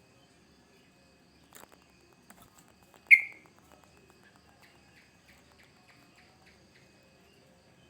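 Yellow-vented bulbul calling: one loud, sharp note about three seconds in, followed by a run of short, quick notes. A faint steady insect trill runs underneath.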